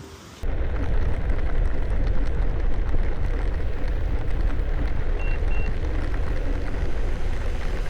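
Heavy wind rumble buffeting the microphone, starting abruptly about half a second in, with two short high beeps a little past the middle.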